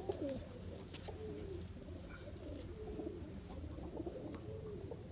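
Several domestic pigeons cooing, their coos overlapping so that no single call stands apart.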